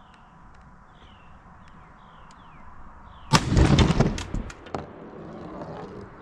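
A single shot from a Remington 870 pump shotgun firing a 3-inch Winchester Long Beard XR turkey load, a sharp blast about three seconds in that rolls away over about a second.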